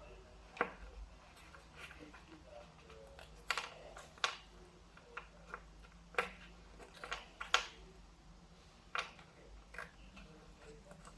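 Faint, irregular clicks and taps of cardboard toilet-paper-roll pieces being handled and pressed into hexagon shapes.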